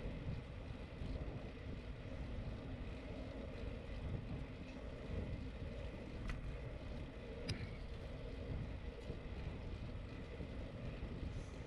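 Steady wind buffeting on the microphone and tyre rumble from a bicycle rolling along an asphalt street, with two short sharp clicks about a second apart past the middle.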